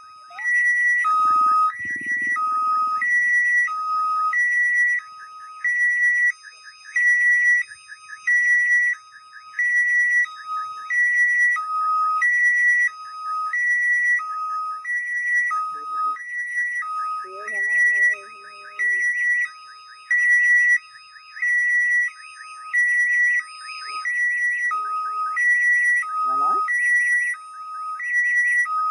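Railway level-crossing warning alarm sounding its steady electronic two-tone signal, a high and a low tone alternating about once a second, which warns that a train is approaching and the crossing is closed.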